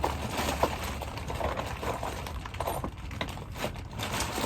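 Scattered light clicks and taps of a small screwdriver and doorbell mounting parts being handled, over steady low background noise.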